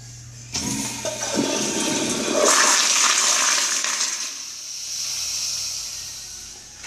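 American Standard Madera toilet flushed by its flushometer valve: a sudden rush of water starts about half a second in, is loudest two to four seconds in, then eases to a hissing flow that tapers off near the end.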